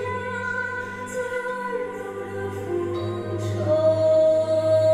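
Live concert music: a male singer's high voice holding long notes over a sustained band backing, taking up one long, steady held note about three and a half seconds in as the music grows louder.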